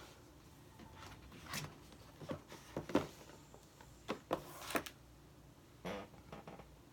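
Scattered light knocks, clicks and rubs of an iPad case being handled and swivelled around on the tablet, with the loudest knock about three seconds in.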